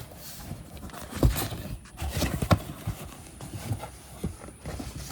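Irregular knocks and thumps of hard objects being handled and set down, a cluster of them between about one and three seconds in.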